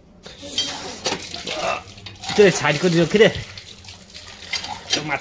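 Water running and splashing, as at a tap or sink, for about the first two seconds, followed by a voice.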